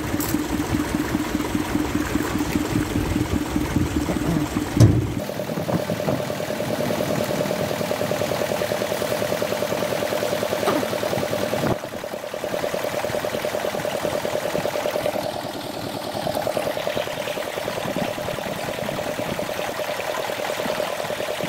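Water gushing from a hose through a cloth filter into a plastic crop-sprayer tank, with an engine running steadily behind it; the engine's note rises about five seconds in.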